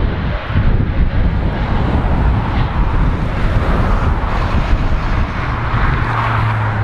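Steady jet engine noise from a Boeing 777-300ER's GE90 engines as it taxis, with wind buffeting the microphone.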